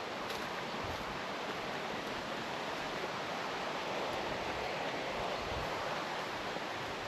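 Steady rushing of falling water from a waterfall, an even noise that holds level throughout.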